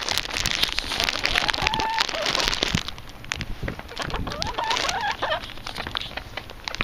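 A bag crinkling and rustling as it is handled and opened, with backyard hens giving two short calls, about two seconds in and again about five seconds in.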